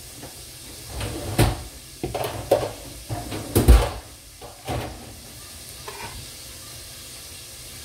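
Kitchen clatter: several sharp knocks of dishes and utensils, the loudest about three and a half seconds in, over a faint steady hiss; the clatter stops about five seconds in.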